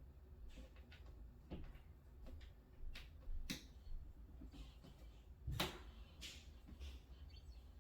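Scattered small clicks and knocks of flat-pack cabinet parts and back-panel support pieces being handled and fitted. The loudest knock comes about five and a half seconds in.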